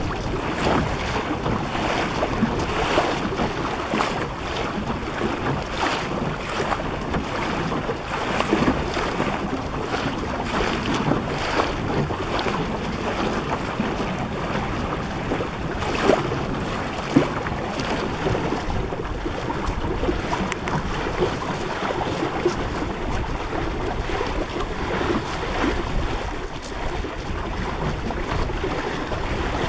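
Water rushing and slapping against the hull of a small wooden Melonseed sailing skiff under way, with wind buffeting the microphone. Two sharper slaps stand out about halfway through.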